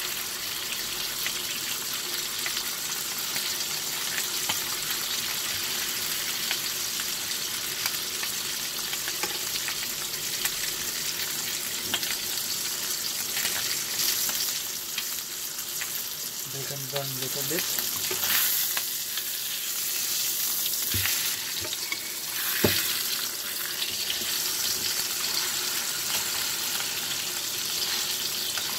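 Ribeye steak sizzling in butter in a frying pan, a steady frying hiss. A couple of sharp clicks of the metal tweezers and knife against the pan about three quarters of the way in.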